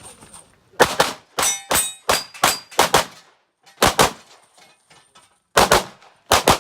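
A rapid string of pistol shots fired in quick groups of two to four, with a short pause about two-thirds of the way through. Some shots are followed by a brief metallic ring, typical of hits on steel targets.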